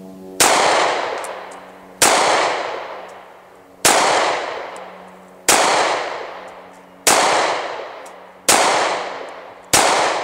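Rock Island Armory 1911 pistol in .45 ACP firing seven shots, about one every one and a half seconds, the last ones a little closer together. Each shot is a sharp crack followed by a long echoing decay.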